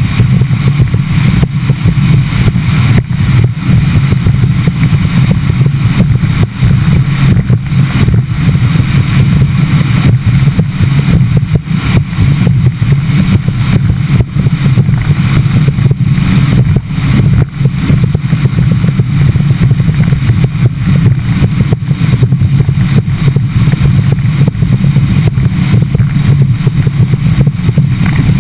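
Bass boat's outboard motor running steadily at speed across choppy water, with heavy wind buffeting the microphone.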